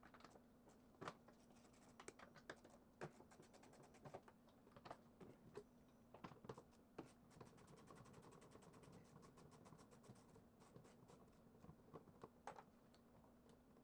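Faint, irregular clicks and taps, closely bunched for a while in the middle, over a steady low hum.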